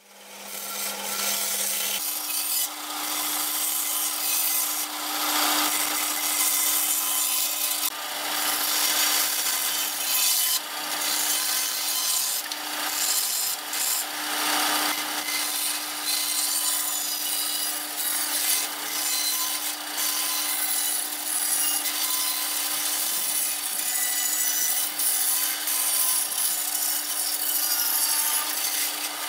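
Band saw running, its blade cutting curved shapes out of wooden boards: a steady motor hum under a rasping cutting noise that swells and eases as the wood is fed through. It fades in over the first two seconds.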